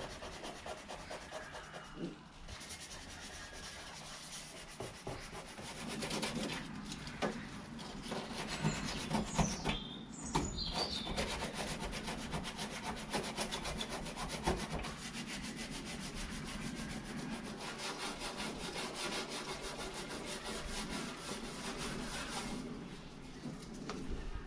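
Sandpaper rubbed by hand in quick back-and-forth strokes over a painted aluminium car boot lid, scuffing off old paint and bits of old sticker; the rubbing gets a little louder and steadier after a few seconds.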